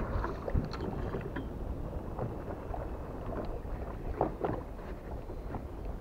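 Wind buffeting the microphone on a boat at open sea: a steady low rumble with a haze of sea noise and a few faint short knocks.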